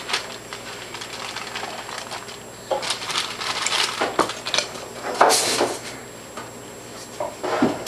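Kitchen knife cutting raw chicken breast on a plastic cutting board: a quiet start, then scattered taps and short scrapes of the blade against the board from about a third of the way in.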